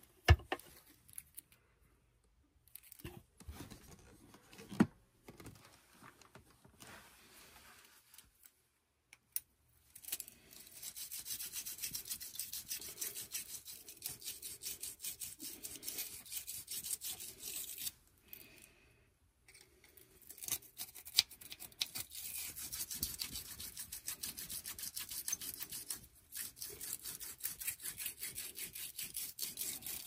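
A few scattered knocks, then a furnace flame sensor rod rubbed clean by hand in rapid back-and-forth scrubbing strokes: two long spells with a pause of about two seconds between them.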